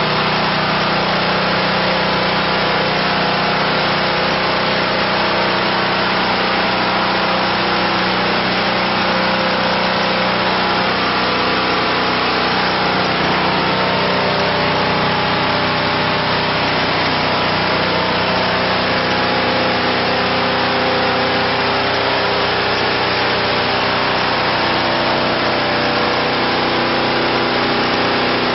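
MJ700D diesel horizontal band sawmill running steadily, its diesel engine at constant speed driving the band blade through a log.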